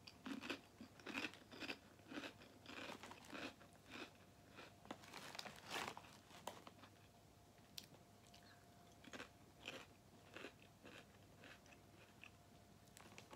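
Quiet, crisp crunching of someone chewing sour cream and onion Popchips (popped potato chips), a couple of crunches a second, with a short lull midway before more chewing.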